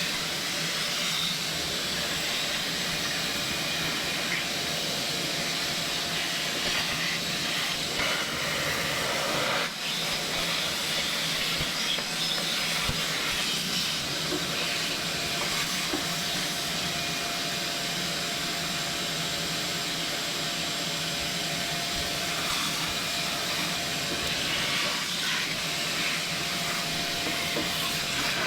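Vacuum cleaner running steadily with a constant whine, sucking debris out of a push mower, with a brief dip about ten seconds in.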